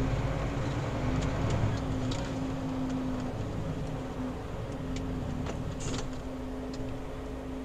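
Lorry's diesel engine running steadily while driving, heard from inside the cab: a low rumble with a steady hum, and a few light clicks and rattles scattered through it.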